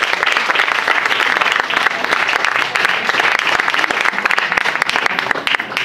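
Audience applauding, a dense patter of many people clapping that thins out at the very end.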